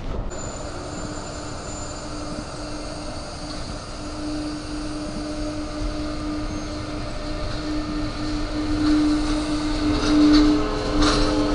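Electric commuter train moving along a station platform, giving a steady electric hum that grows louder toward the end. More tones join the hum near the end, along with a few short clicks from the running gear.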